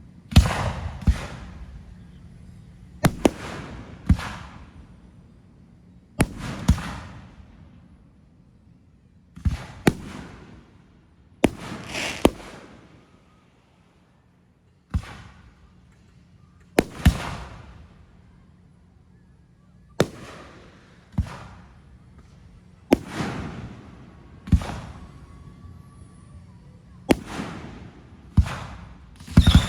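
Aerial fireworks going off one after another, about every three seconds. Each comes as sharp bangs, mostly in pairs, followed by a fading rumbling tail.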